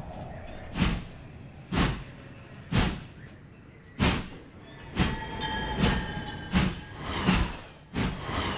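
Sound-designed soundtrack of heavy booming hits, about one a second at first and coming faster toward the end. Around the middle there is a high squealing tone with several pitches, like metal grinding on rails.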